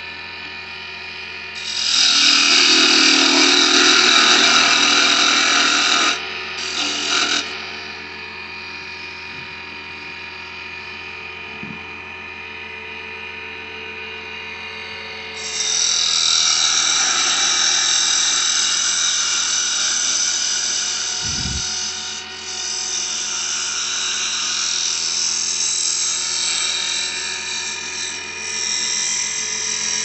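Wood lathe running with a steady motor hum while a turning tool cuts the spinning cedar blank in a loud hiss: about two seconds in for four seconds, briefly again a second later, then steadily through the second half.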